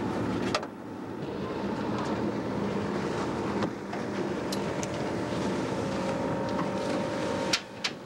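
Boat outboard motor running steadily, with water and wind noise. A few sharp clicks break it briefly, about half a second in, just past the middle and twice near the end.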